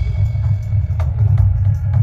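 Music with a deep, steady bass and a few sharp drum hits.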